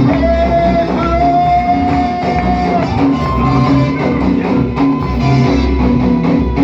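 Live praise-band music with bass and guitar playing a steady beat, with a long held note over it and then a second, higher held note.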